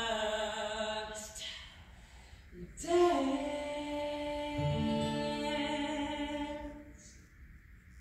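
A cappella vocal music: several layered voices holding long chords, a new sustained phrase entering about three seconds in and fading out near the end.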